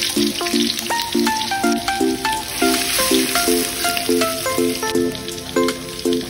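Minced garlic sizzling in hot oil in a wok, stirred with a steel spatula, under background music with a steady repeating chord rhythm.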